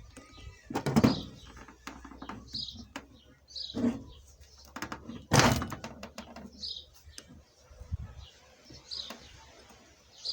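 Scattered metallic knocks and clinks of parts and tools being handled during a workshop disassembly, two of them louder, about a second in and past the middle. A small bird chirps now and then in the background.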